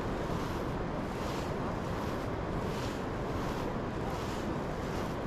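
Wind buffeting the microphone: a steady rumble with a hiss that swells and fades every second or so.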